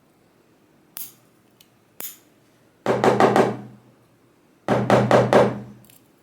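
Hammer blows on a lock, knocking a part out of the housing: two light taps, then two quick runs of about four heavier strikes with a low ring after them.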